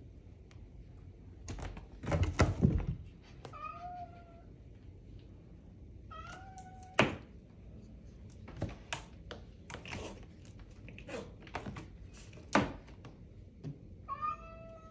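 Bengal kittens giving three short, high meows while they scramble on a carpeted cat tree, with scattered knocks and thumps from their paws and the toy. The loudest is a burst of knocking about two seconds in.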